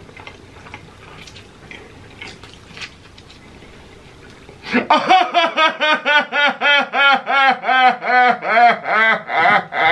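Quiet chewing with faint mouth clicks, then about five seconds in a man bursts into loud, rhythmic laughing through a mouthful of food, about two to three 'ha's a second, each one rising and falling in pitch.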